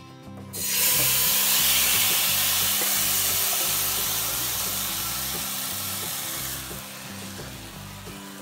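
Wet grated coconut with sugar and pandan juice sizzling as it hits a hot coated frying pan and is stirred: a loud hiss that starts suddenly about half a second in, eases off gradually and drops away at about six and a half seconds, over background music.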